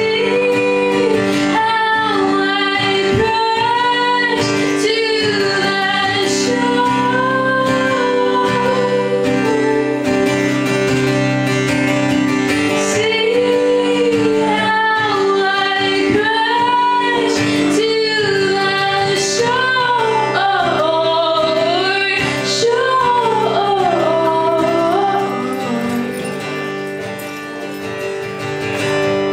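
A woman singing with her own acoustic guitar accompaniment, a sung melody over strummed chords. The music gets somewhat quieter near the end.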